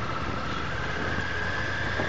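Triumph Tiger 900 GT's three-cylinder engine and road noise while riding, as picked up by a dash camera mounted on the bike: a steady low rumble with a whine that rises slowly in pitch.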